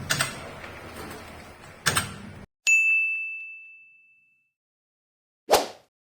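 Mechanical clatter with a couple of sharp knocks cuts off abruptly, followed by a single clear bell-like ding that rings and fades over about a second and a half. A short swoosh comes near the end.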